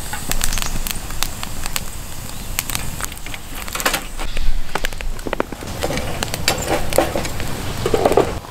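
Small wood fire crackling in a metal fire box, with irregular sharp clicks and clatters as the burning wood is shifted with metal tongs.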